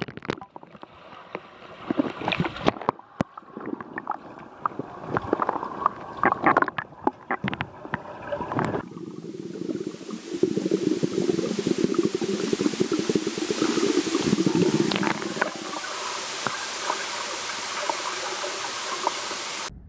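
Swimming-pool water heard through an underwater camera: sloshing and gurgling with many knocks and clicks as a swimmer moves, then a steady muffled rush of water and bubbles from about nine seconds in. It cuts off suddenly near the end.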